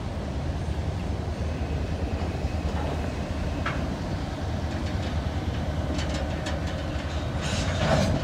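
Freight train's covered hopper cars rolling slowly past close by: a steady low rumble of wheels on rail, with a few sharp clicks from about six seconds in and a louder burst of noise just before the end.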